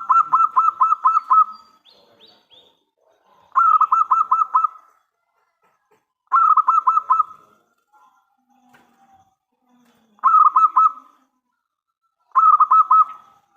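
Zebra dove (perkutut) cooing in five quick phrases, each a fast run of short repeated notes, with pauses of a second or two between phrases. The song of a loud-voiced local bird, the kind used as a lure call to draw other zebra doves into answering.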